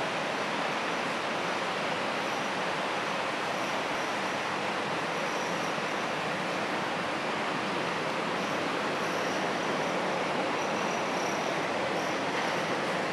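Steady, even rushing noise with no pitch or rhythm, and a faint high thin tone that comes and goes.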